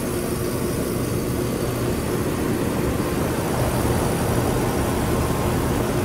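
Brand-new 2024 Concord 4AC16L two-ton air conditioner condensing unit running steadily just after startup: the condenser fan blowing air with a steady compressor hum underneath. It is already pushing out hot discharge air.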